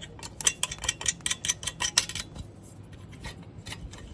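Light metallic clinking of exhaust nuts and bolts being spun on by hand: a quick run of clicks for the first couple of seconds, then a few scattered ones.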